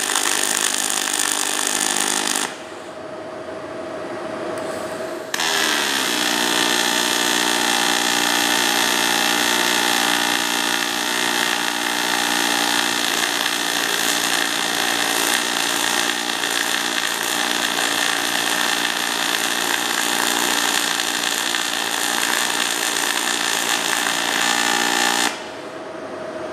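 Aluminum MIG welding arc from a Lincoln Power Wave S350 running in AC mode, 4043 wire in straight argon: a loud, steady hiss over an even pitched hum. The arc stops about two and a half seconds in, strikes again about five seconds in, and cuts off about a second before the end; a steady machine hum remains in the gaps.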